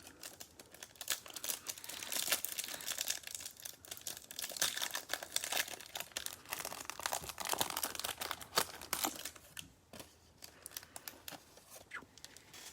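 Card packaging being torn open by hand: irregular crinkling, crackling and tearing of wrapper and box, busiest through the middle and thinning out near the end.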